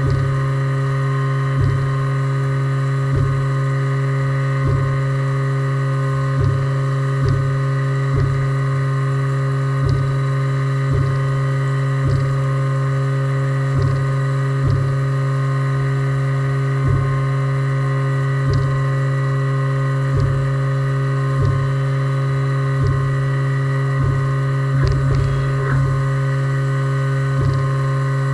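Haas VF2 CNC mill's spindle running steadily at about 8100 RPM while machining, a constant hum with overtones, with a short knock roughly once a second as the cutter works along its toolpath.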